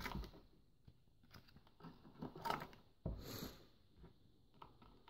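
Hands handling a small cardboard box and a USB charging cable: faint scattered clicks and rustles, with a sharper knock about three seconds in.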